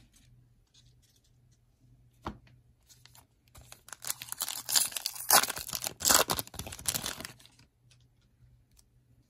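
A foil trading-card pack (2021 Panini Prestige Football) being torn open by hand, its wrapper crinkling for about four seconds in the middle. A single click comes about two seconds in.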